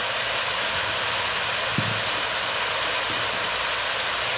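Steady hiss of chopped turnips, onion and tomato sizzling in oil in a pressure cooker, with one faint click a little under two seconds in.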